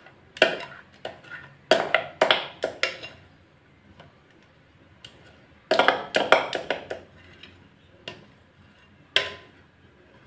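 A utensil scraping and tapping against a bowl while thick mung dal paste is scraped out into a steel container. The clicks and knocks come in a few quick clusters with short pauses between.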